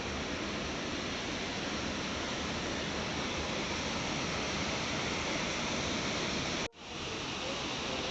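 Steady rush of a waterfall's falling water, an even hiss across the range. It cuts out for an instant about two-thirds of the way through, then resumes.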